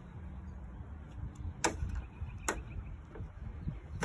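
Two sharp metallic clicks, about a second apart, from a ratchet and spark plug socket being handled over the engine, with fainter ticks around them and a low steady rumble underneath.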